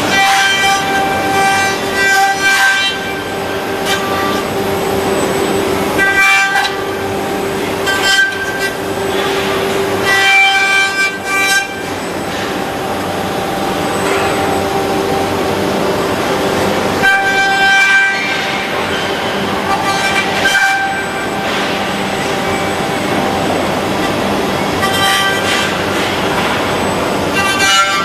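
Six-axis industrial robot cell cutting and finishing a car dashboard: a loud, steady machine whine made of several tones, dipping and breaking off briefly every few seconds.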